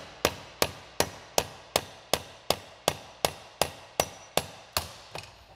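Hammer blows driving a new pivot pin into a Ford 3000 tractor's hydraulic top lid: about fourteen sharp strikes at a steady pace of nearly three a second, stopping about five seconds in.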